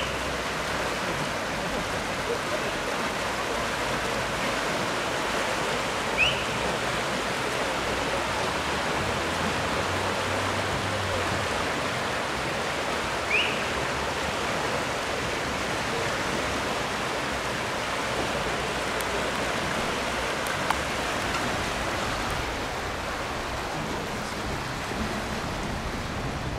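Swollen river in flood, fast water flowing with a steady, even rush. Three short, high, rising chirps, about seven seconds apart, sound over it.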